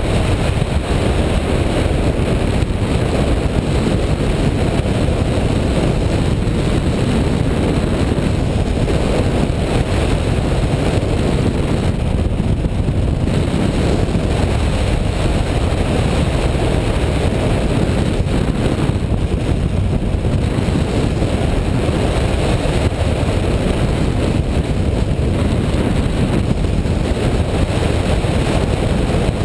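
Steady rush of airflow buffeting the microphone of a camera mounted on a hang glider in flight, with no engine or voice.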